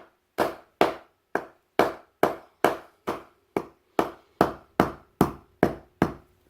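Steady hammer blows, about two and a half a second, driving a wooden wedge into the top of a hammer handle to lock the head on.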